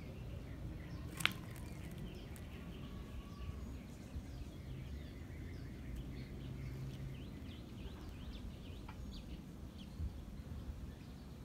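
Faint outdoor ambience: a steady low rumble with scattered small bird chirps, and one sharp click about a second in.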